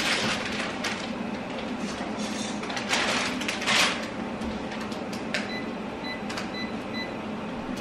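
Dry spaghetti rustling and clattering as it is put into a pot of boiling water, over a steady low hum. Then about five short, high electronic beeps as a timer is set.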